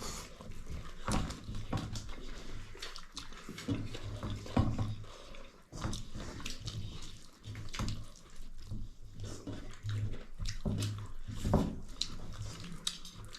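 Close-up eating sounds: wet chewing, lip-smacking and slurping of saucy pork and fried bitter gourd, with many short irregular clicks.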